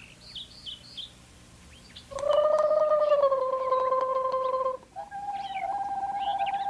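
A warbling, trilled imitation of birdsong: after a few faint chirps, two long fluttering notes, the second a little higher than the first.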